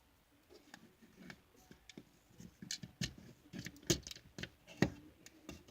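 Plastic LEGO bricks clicking and clattering as pieces are handled and pressed into place, with a few sharper clicks in the second half.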